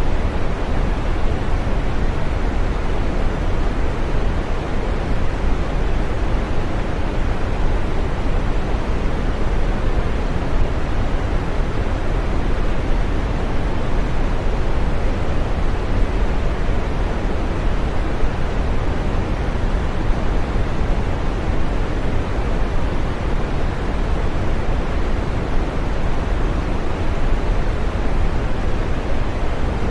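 Steady green noise: an even, unchanging rush, fullest in the low and middle range and fading out in the highs.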